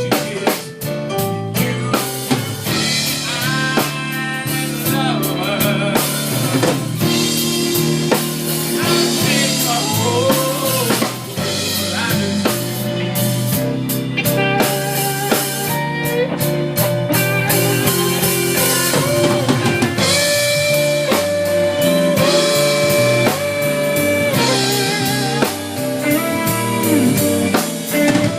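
Instrumental passage of blues band music: drum kit keeping a steady beat under guitar, with a bending, wavering lead line.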